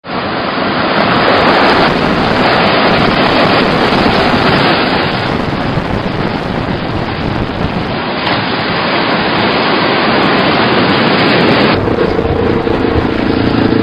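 Strong wind buffeting the microphone over surf breaking on a beach, the rough conditions ahead of Hurricane Wilma. About twelve seconds in it cuts abruptly to a duller sound with a few faint steady tones.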